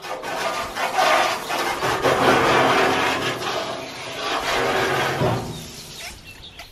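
Garden hose spray nozzle jetting water into a galvanized steel stock tank, a dense hiss of spray on metal that fades about five seconds in.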